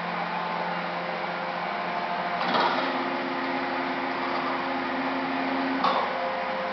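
Polyurethane gasket dispensing machine running as its head travels along the panel: a steady mechanical hum and whine. The pitch of the whine shifts about two and a half seconds in with a short louder burst, and shifts back near the end with another.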